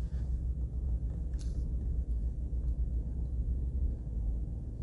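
Steady low background rumble, with no other distinct sound.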